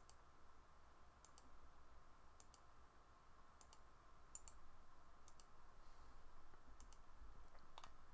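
Faint clicks of a computer mouse button, about eight, spaced roughly a second apart, many heard as a quick double tick.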